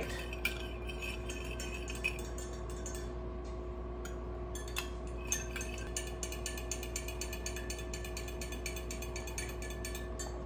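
Quiet kitchen room tone with a steady hum, two light clinks of a metal spoon against a glass mug in the first two seconds, then faint rapid clicking.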